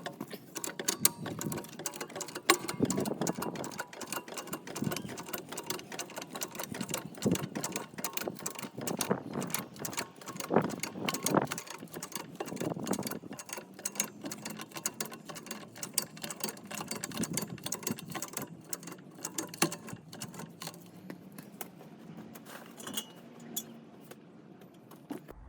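Car jack being worked to lift a car: rapid, irregular mechanical clicking and clanking that goes on throughout.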